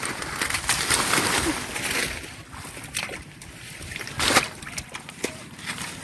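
Water splashing and sloshing in short irregular bursts as someone works by hand through shallow water among water hyacinth, with the loudest splash a little past four seconds in.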